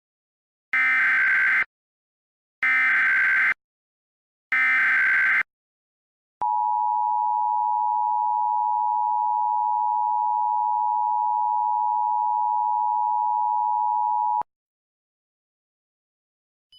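Emergency Alert System opening: three one-second blasts of SAME digital header data, then the steady two-tone EAS attention signal held for about eight seconds before cutting off suddenly.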